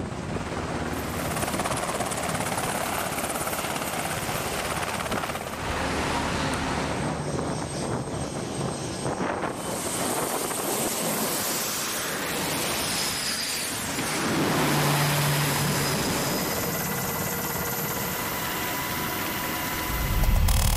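Navy Seahawk helicopter's steady rotor and turbine noise, giving way about halfway through to the twin turboprop engines and propellers of a C-2 Greyhound carrier aircraft running.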